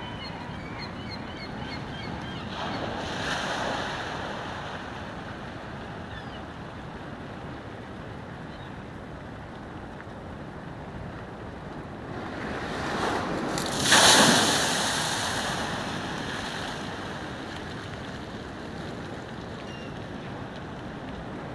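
Storm waves breaking against a stone harbour wall and sluicing across the cobbled quay, with wind on the microphone. A smaller surge comes about three seconds in. About fourteen seconds in a big wave crashes suddenly and dies away over a few seconds.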